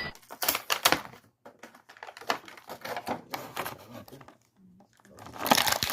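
Cardboard-and-plastic action-figure blister packaging being handled and opened: a run of irregular clicks, taps and crinkles, with a denser rustle near the end.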